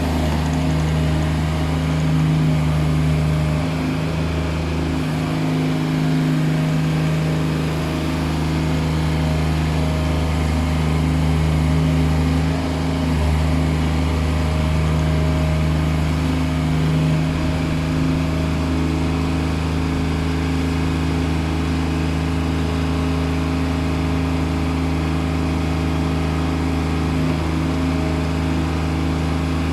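Crawler bulldozer's diesel engine running steadily at a constant speed, with a deep, even hum.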